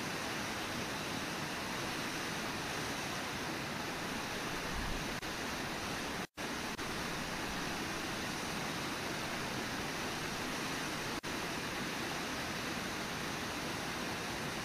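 Steady rushing of the Brooks River and falls, an even wash of water noise. The sound drops out completely for an instant about six seconds in and dips again briefly near eleven seconds.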